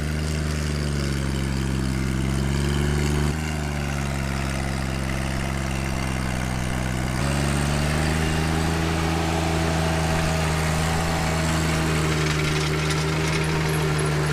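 John Deere 1025R's three-cylinder diesel engine running hard under load as it drives a PTO rotary tiller through untilled ground, labouring. The engine note drops suddenly about three seconds in and steps back up about seven seconds in, then holds steady.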